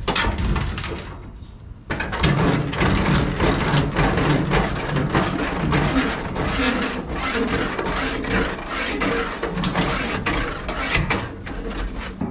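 Dense crackling and rustling of dry leaves and twigs, mixed with knocks and scrapes of a rusty sheet-metal truck hood panel as it is forced up on its stiff hinge.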